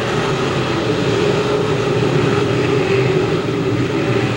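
A pack of Crate Modified dirt-track race cars running at full throttle just after the green flag, their V8 engines blending into one steady, even drone.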